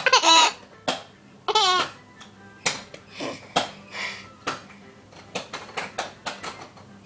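Baby laughing in two loud, high-pitched bursts with wavering pitch within the first two seconds, then softer short vocal sounds and babbling.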